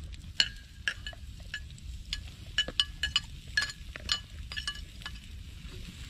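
Metal utensil clinking and stirring in a metal cooking pot: about fifteen light, irregular taps, each ringing briefly at the same pitch, over a low steady rumble.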